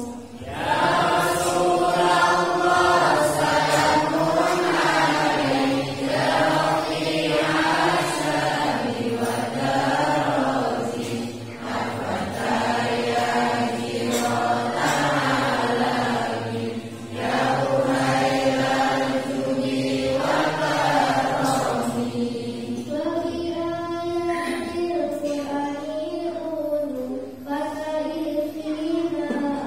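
Girls' voices chanting a mawlid, devotional verses praising the Prophet, in a flowing melodic line sung into microphones. Their voices carry no drum or instrument. About three-quarters of the way through it drops to a softer, thinner line.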